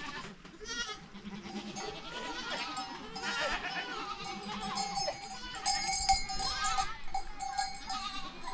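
A flock of sheep bleating, many animals calling over one another, with a steady high tone held behind them from about a second in.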